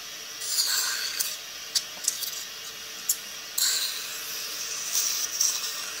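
Dental suction tube hissing steadily, with louder slurping surges as it draws saliva and water from the mouth, and a few short clicks.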